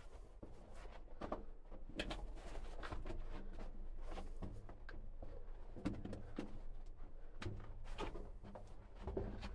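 Footsteps on loose rock and rubble in a mine tunnel: an irregular series of scuffs and knocks.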